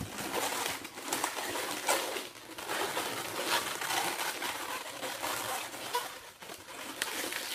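Inflated 260 latex twisting balloons rubbing and squeaking against each other as one is worked through a balloon figure's body.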